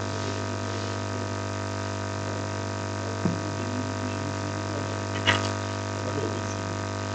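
Steady mains hum with a stack of constant tones from the hall's sound system, broken by two brief knocks about three and five seconds in.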